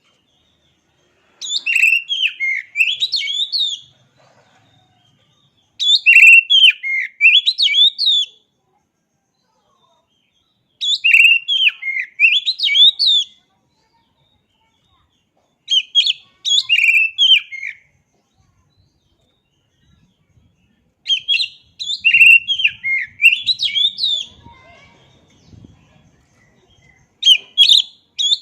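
Oriental magpie-robin (kacer) singing: six loud bursts of rapid, varied high whistled notes, each lasting two to three seconds, with short silent pauses between them.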